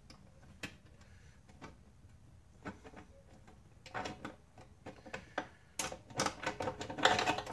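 Irregular light clicks and clinks of parts being handled: sparse at first, then in quick clusters, ending in a dense rattle near the end.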